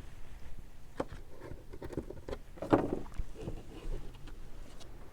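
Handling noise of costume-jewellery brooches: a few scattered light clicks and taps as metal pieces are set down and picked up, the loudest a little under three seconds in.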